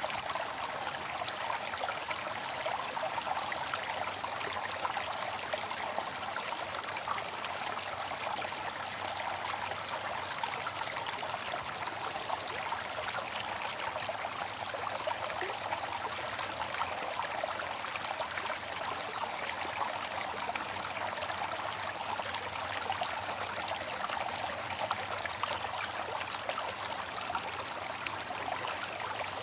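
Water fountain splashing and trickling steadily, an even, unbroken water sound with no changes.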